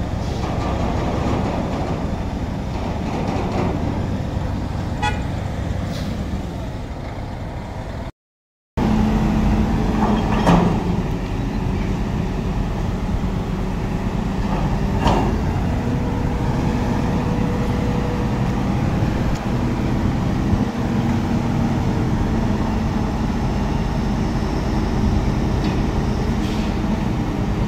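Heavy diesel engines of the container trucks and the truck-mounted crane running steadily during container lifting. The sound drops out for a moment about eight seconds in. Two short horn toots come about ten and fifteen seconds in.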